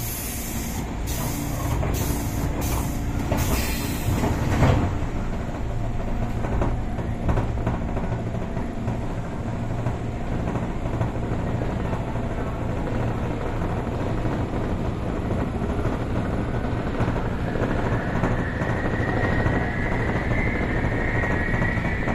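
Interior of a JR 203 series electric train's motor car: several short bursts of air hissing in the first five seconds over a steady low hum. From about three-quarters of the way through, the high whine of the thyristor chopper traction motors rises steadily in pitch as the train starts to accelerate.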